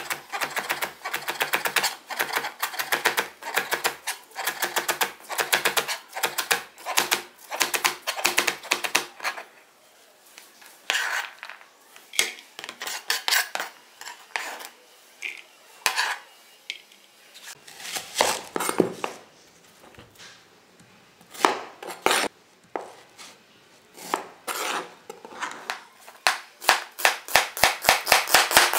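Chef's knife chopping leeks on a plastic cutting board, the blade knocking on the board in a fast, steady run for about the first nine seconds. It then turns to slower, scattered cuts, and a quick run of cuts comes again near the end as a white onion is sliced.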